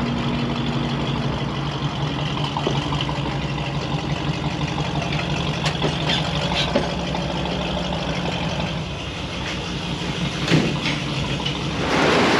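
Tow truck's engine running steadily at low speed while towing, a steady low hum with a few light knocks. Near the end a louder rushing noise rises over it.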